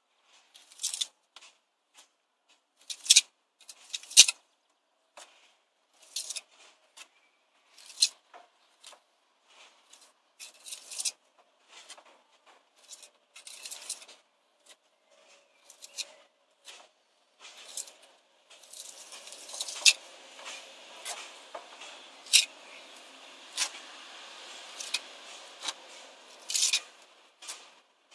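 Steel pointing trowel scraping mortar along the joints of a brick wall in short, irregular strokes about a second apart. A steady hiss comes in under the strokes about two-thirds of the way through.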